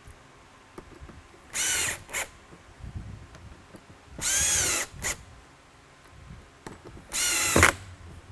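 Cordless drill/driver running in three short bursts, each about half a second long with a brief blip right after, driving screws down through the aluminium top plate into the posts of a mini lightbar's dome.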